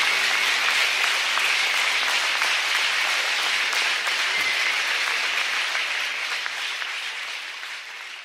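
Concert audience applauding, fading out gradually over the last few seconds.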